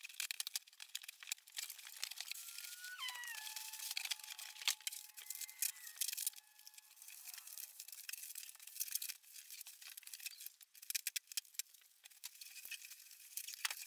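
Plastic and foam packing rustling, crinkling and tearing as a computer is unpacked from its shipping box, in sparse crackles and clicks. A few seconds in comes a long squeak that drops in pitch and then holds, with a shorter, higher one over it.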